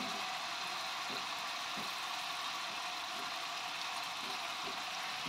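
Oil sizzling steadily in a wok as a dark instant rawon spice paste fries in it, with a few faint pops.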